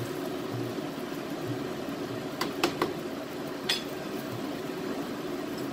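Seafood paella broth simmering in a steel paella pan on a gas burner, a steady low hiss, with a few light clicks of the pan or spoon about halfway through.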